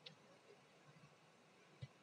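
Near silence: faint room tone, with two faint clicks, one at the very start and one near the end.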